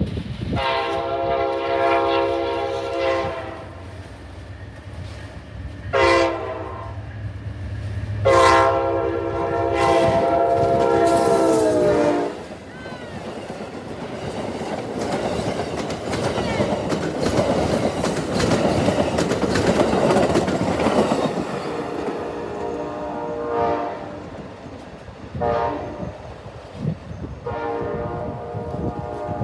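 Amtrak passenger train's air horn blowing for a grade crossing: a long blast, a short one and a longer one. The train then passes close by with a loud rush and wheels clattering on the rails, and the horn sounds again, quieter, near the end.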